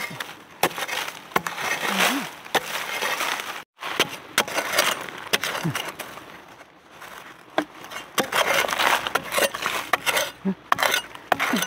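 A metal digging spade striking and chopping into dry, crumbly soil again and again, breaking clods loose with scraping and pattering earth, pausing briefly about halfway through before the strikes resume.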